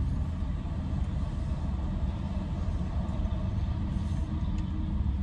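Steady low rumble of a pickup truck's engine idling, heard from inside the closed cab.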